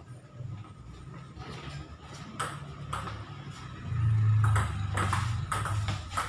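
Table tennis rally: the ball clicks sharply off the bats and the table, several hits about half a second apart. A low steady hum comes up about four seconds in and is the loudest thing from there on.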